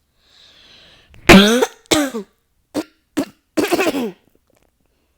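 A person in a coughing fit: a loud cough about a second in, then a string of about four shorter coughs, all with some voice in them, stopping a little after four seconds in.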